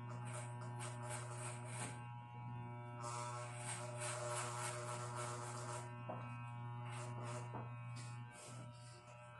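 Electric hair clippers buzzing steadily, with stretches of rasping hiss as the blades cut through short hair at the side of the head. The buzz weakens shortly before the end.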